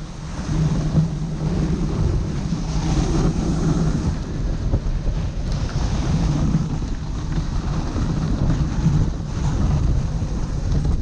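Steady rushing noise of a two-dog sled moving along a snow trail: wind on the microphone and the sled's runners sliding over snow.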